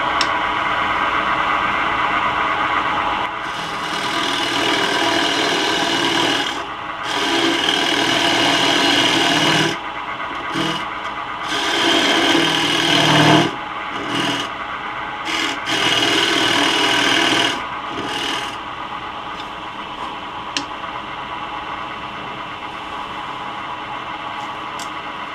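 Carbide-insert turning tool scraping wood from a spinning blank on a Laguna Revo 12/16 lathe, hollowing a recess in a series of cuts with short breaks between them. After about 18 seconds the cutting gets lighter and quieter, with a steady run and a couple of single clicks.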